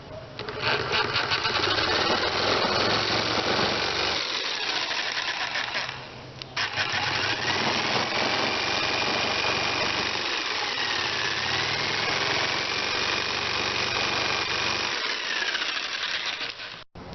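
Handheld electric power tool working the wood of the door repair, its motor whine sagging and recovering under load. It runs in two stretches, stopping briefly about six seconds in.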